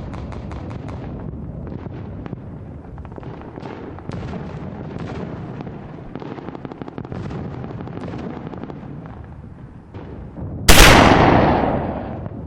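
A continuous rumbling noise with many small sharp pops scattered through it, then near the end one very loud bang that dies away over about a second and a half.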